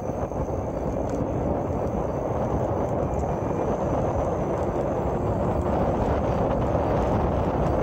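Steady rushing of wind and tyre noise from an electric bike ridden under motor power on a concrete path, growing slowly louder as it speeds up.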